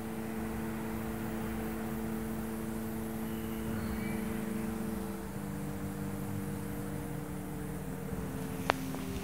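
Steady running noise of a vehicle, a low hum of a few held tones that drop in pitch about five seconds in and again near the end, with a sharp click near the end.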